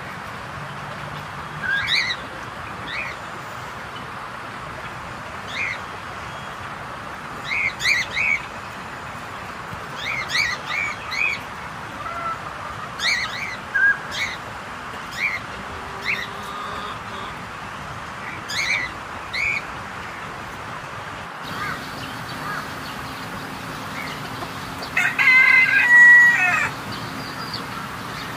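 Aviary birds calling, with short chirps every second or so over a steady background hiss. Near the end a rooster crows once, longer and louder than the rest.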